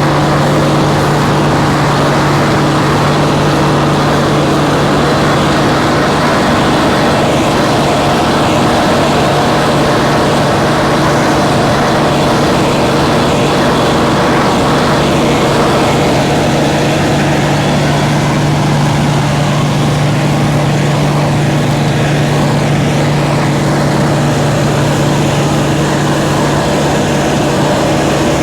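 Nearly 40-year-old combine harvester running steadily while combining spring barley: a constant low hum under an even mechanical rush.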